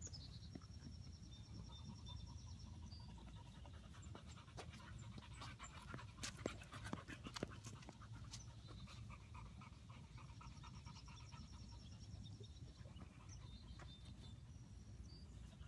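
A dog panting, faint, over a low rumble. A thin high trill sounds twice, near the start and again about halfway through.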